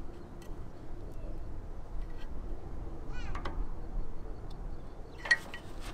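Screwdriver levering between a brake rotor and pad to force the caliper piston back, with metal scraping and a short squeak about three seconds in, then a sharp metallic clink near the end.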